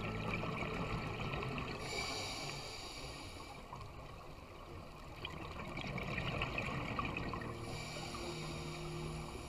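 Scuba diver breathing through a regulator, heard underwater: two hissing inhalations, about two seconds in and again near the end, with bubbling, gurgling exhalation noise between.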